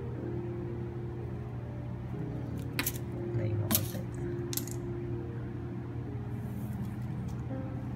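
Stainless steel orthodontic wires (0.016 x 0.022 straight lengths) clinking in their plastic tube as the cap comes off and the wires are slid out: three sharp metallic clicks a little under a second apart near the middle, then a few fainter ticks.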